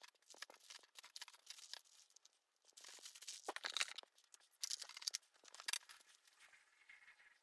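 Crinkling and rustling of a plastic zip bag and paper sheets being handled and gathered up, in irregular bursts.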